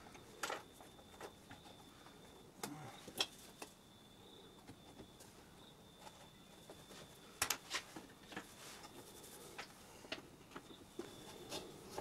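Light, scattered knocks and taps of hardwood boards being handled and set against one another during a dry fit of biscuit-jointed mitres, with a quick double knock about seven and a half seconds in. A faint steady high-pitched tone sits underneath.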